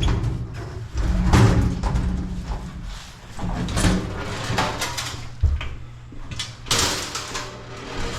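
A small metal table being handled, with a series of irregular knocks, clatters and scrapes and one sharper hissing scrape near the end.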